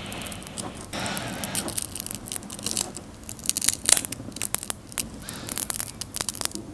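A plastic pry tool prying the ear cushion off a Beats Studio3 Wireless ear cup. It scrapes along the seam, with a rapid run of small clicks and crackles as the cushion's clips and adhesive come loose, densest in the middle.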